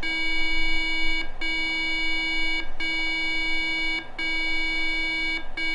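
PC speaker of an IBM PS/2 Model 77 motherboard sounding a string of steady beeps of the same pitch, each a little over a second long with short breaks between them. A custom debug BIOS is signalling data bits as high or low tones.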